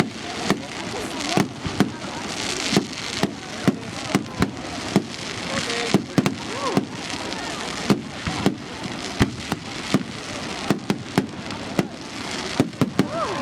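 Fireworks display: a rapid, irregular series of sharp bangs from bursting aerial shells, about one or two a second, over a continuous crackle and hiss.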